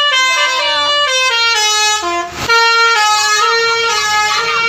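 Basuri telolet horn on a bus playing a tune: a string of loud, steady horn notes changing pitch every fraction of a second, with a short break about two and a half seconds in before the melody carries on.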